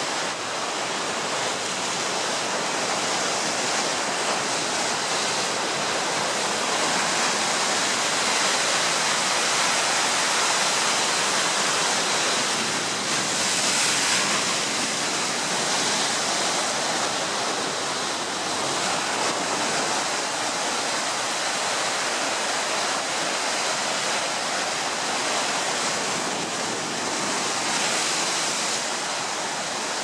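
Ocean surf churning and crashing in a narrow rocky inlet: a loud, steady rush of foaming white water, with a brief louder surge about fourteen seconds in.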